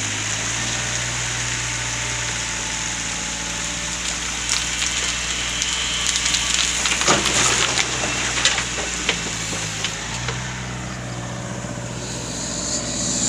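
Heavy machinery engine running steadily while a backhoe bucket loads sand into a truck. Scraping, clattering and the rush of pouring sand come from about four to nine seconds in.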